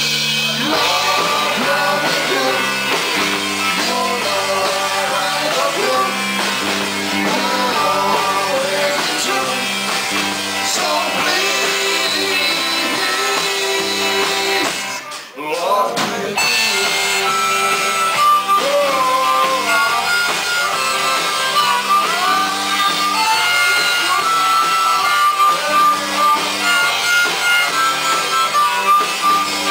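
Live rock band playing with harmonica among the instruments; the music breaks off for a moment about halfway through, then carries on with held, bending harmonica-like notes over the band.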